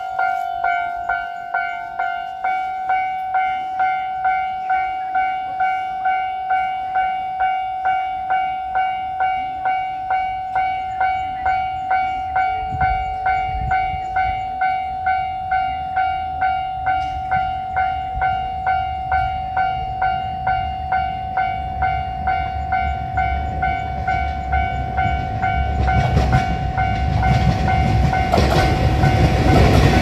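Japanese railway level-crossing alarm ringing its electronic 'kan-kan' bell in a steady repeating rhythm, warning of an approaching train. From about halfway a low rumble builds, and in the last few seconds a JR Shikoku 2700-series diesel express railcar runs in loudly, its engine and wheels swelling over the bell.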